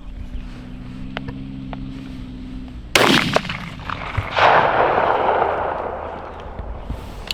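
Two shotgun shots at doves, about a second and a half apart. The second is followed by a long fading echo. The shooting is at long range, a "poke".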